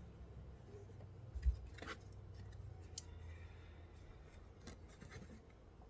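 Trunk trim of a Mercedes E350 being handled and pushed back into place: faint rubbing and scattered small clicks, with a dull thump about a second and a half in and a short scrape just after.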